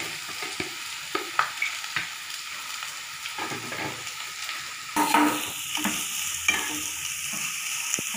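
Chopped onions sizzling in hot oil in a steel frying pan. A spoon clicks and scrapes against the pan as they are stirred, louder and busier from about five seconds in.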